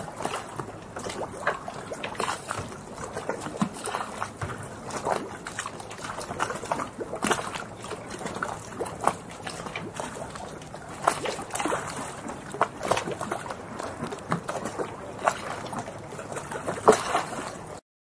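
Harbour waves lapping and sloshing: a steady wash of water broken by frequent irregular splashes and gurgles. It cuts off abruptly near the end.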